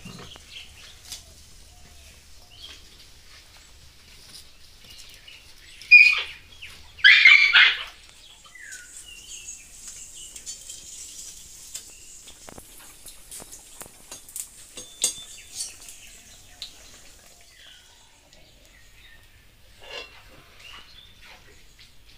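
Malpua batter frying in hot oil in an iron wok, a faint steady sizzle, with small birds chirping now and then. About six seconds in, two loud animal calls stand out, the second one longer.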